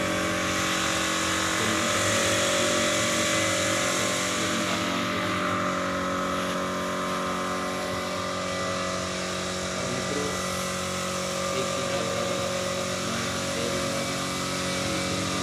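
A motor running steadily, giving an even mechanical hum that does not change.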